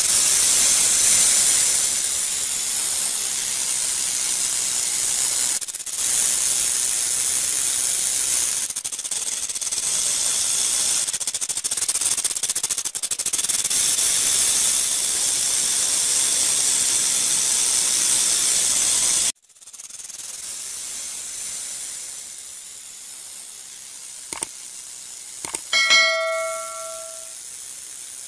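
A steady, loud hiss that drops to a quieter hiss about two-thirds of the way through. Near the end comes a short bell-like notification ding, the chime of a pop-up subscribe button.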